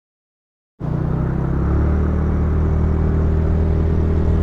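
Silence, then about a second in the sound cuts in: a motor scooter's engine running steadily under way, with wind and road noise.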